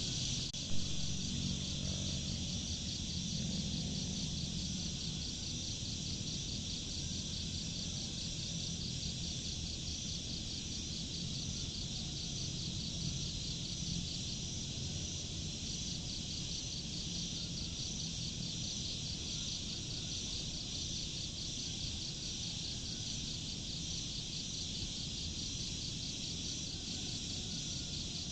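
Steady chorus of insects, a high-pitched rapidly pulsing trill that never lets up, over a low rumble. A single sharp click sounds about a second in.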